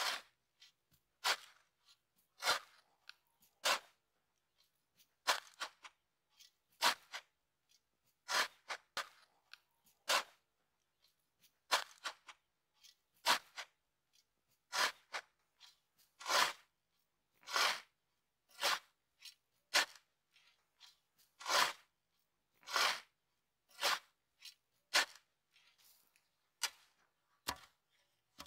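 Steel square-bladed shovel digging into fine gravel, a crunching scrape with each stroke, repeated about once every second or second and a half.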